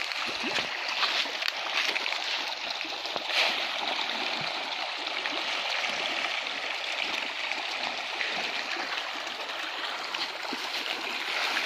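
A curtain of water falling in drops and spray and splashing down in a steady rush.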